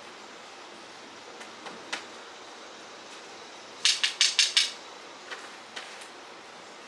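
Spider webs being cleared: a run of five quick, sharp swishing strokes about four seconds in, with a few faint taps before and after, over a steady background hiss.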